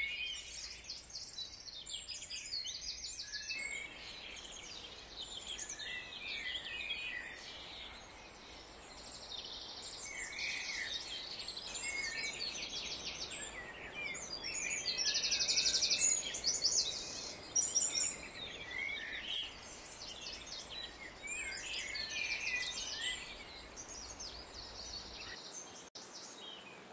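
Several songbirds singing and calling over one another, with rapid high trills that are loudest a little past the middle. A faint steady low hum runs underneath and stops shortly before the end.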